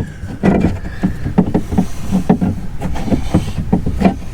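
Irregular knocks and rattles of metal parts being worked inside a car door, as the power-window motor and regulator are pulled out by hand.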